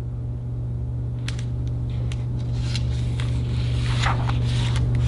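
Picture-book pages being handled and turned: light paper rustles and a few soft clicks, over a steady low hum.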